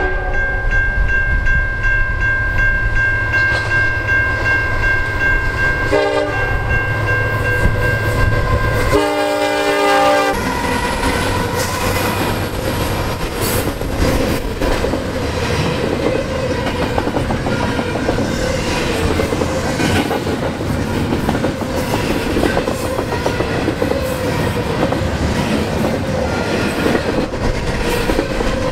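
CN freight diesel locomotive's air horn sounding: one long blast, a second after a brief break about 6 s in, and a short third near 10 s. The lead locomotives then pass, and a double-stack container train rolls by with its wheels clattering steadily over the rail joints.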